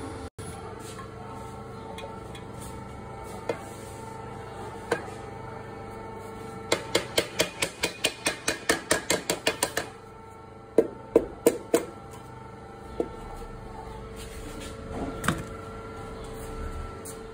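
Metal tools tapping and knocking on engine parts: a quick even run of about twenty taps, roughly seven a second, then a few louder separate knocks, over a steady hum.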